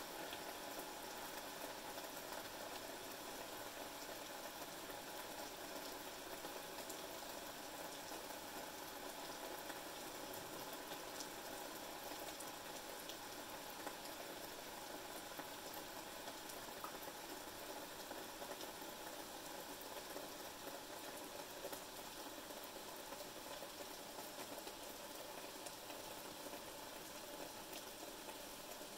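Steady rain falling outside, an even hiss with scattered faint drop ticks.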